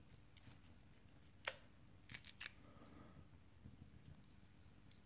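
Near silence with a few faint, short clicks from handling an opened smartphone: one about a second and a half in, a small cluster around two seconds in, and one more at the very end.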